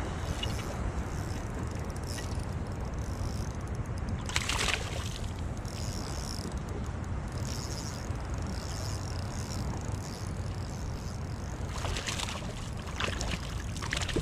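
A hooked tailor splashing at the water's surface beside the boat, in a sharp burst about four seconds in and a few more near the end, over steady wind and water noise.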